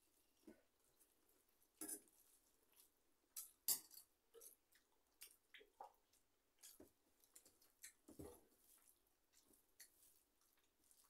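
Quiet sounds of rice and dal being mixed and eaten by hand from steel plates: scattered soft squishes, mouth smacks and small clicks of fingers and steel. The sharpest click comes a little under four seconds in.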